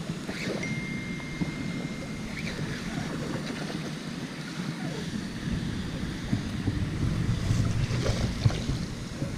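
Wind buffeting the microphone of a body-mounted camera, a low rumble that swells near the end, with light rustling clicks. A thin, high, steady whistle holds for about two seconds near the start.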